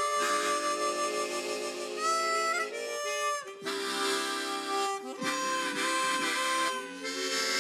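A harmonica orchestra playing together: solo, chord and bass harmonicas sounding held chords, the harmony changing every second or two.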